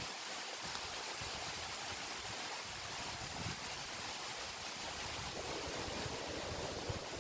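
Wind rushing through beech woodland with rain, a steady even hiss; low wind buffeting on the microphone builds near the end.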